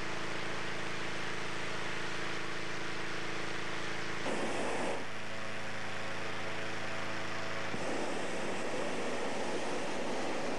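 Engine-driven inflator fan running steadily, blowing cold air into a hot air balloon envelope laid on the ground. About eight seconds in, the hum gives way to a broader, steady rushing of air.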